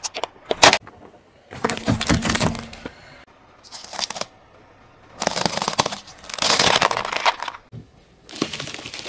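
Car tyre crushing a series of objects: sharp cracks of plastic giving way near the start, then several separate bursts of crunching and crackling as other items are flattened.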